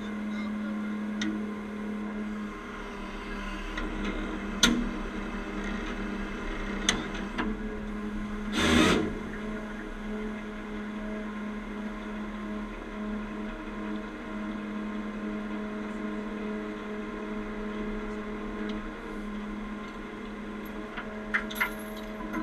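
Heavy truck engine running steadily, with a few sharp knocks and a loud burst of hiss about nine seconds in. Metal clinks near the end as the recovery rigging is handled.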